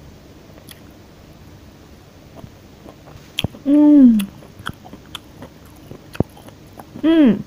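Close-miked chewing and biting of food, with scattered sharp mouth clicks. Two short hummed 'mmm's of enjoyment, one about three and a half seconds in and one near the end.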